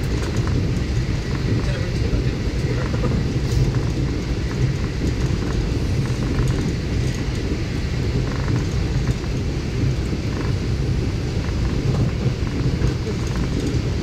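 Steady low rumble of a passenger train running along the track, even and unbroken.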